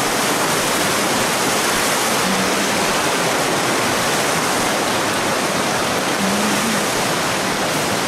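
Loud, steady rush of a rocky river running fast over rapids.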